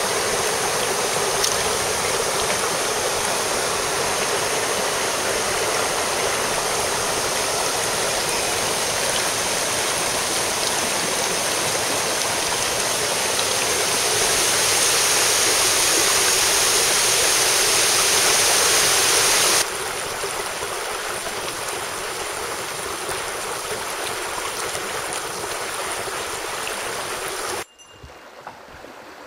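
Mountain stream rushing over rocks, a steady loud wash of water. The sound drops abruptly about two-thirds of the way in and again, much further, near the end.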